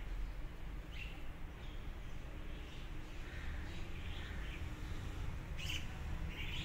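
Outdoor background noise, a steady low rumble, with a few faint bird chirps scattered through.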